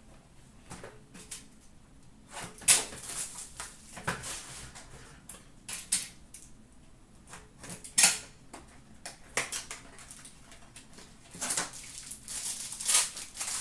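Hockey card packs and their small cardboard box being torn open and handled by hand: scattered sharp crinkles, tears and clicks of wrapper and cardboard, with a busier stretch of crinkling near the end.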